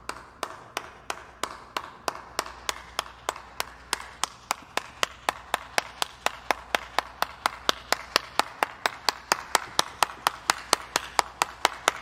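A person clapping their hands in a steady, even rhythm, about three claps a second, growing a little louder toward the end.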